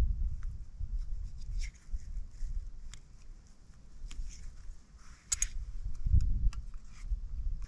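Wind rumbling on the microphone, with scattered small clicks and brief scrapes of camping kit being handled.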